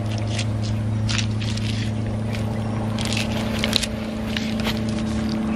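A steady low machine hum, like a motor running. Soft rustles and light clicks from the tree saddle's straps, rope tether and carabiners being handled come and go over it.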